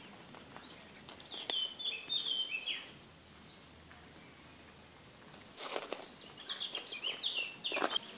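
A songbird singing two short phrases of quick, chirpy notes, a few seconds apart, with a few sharp clicks near the start of the second phrase and at its end.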